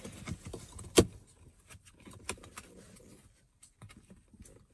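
Fingers working the plastic wiring plug of a car's dashboard tweeter: light rustling and scattered plastic clicks, with one sharp, louder click about a second in.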